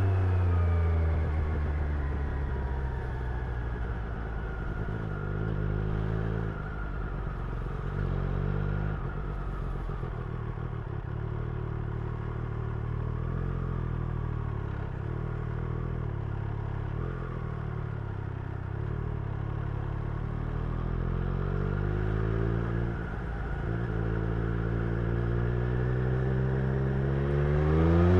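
Triumph Street Triple's inline three-cylinder engine heard from the rider's seat. The revs fall away in the first couple of seconds, then it runs at low, fairly steady revs with small swells of throttle. Over the last few seconds it climbs steadily as the bike accelerates.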